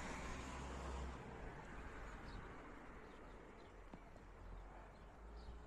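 Faint outdoor background: a low rumble of wind on the microphone, with a few faint, short bird chirps scattered through the middle and end.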